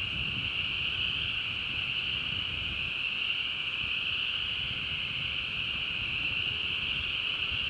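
Steady, unbroken high-pitched insect chorus, with a faint low rumble of wind underneath.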